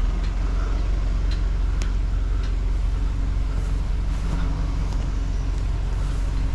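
A vehicle engine running steadily at low speed, a deep even drone, with a few faint light ticks.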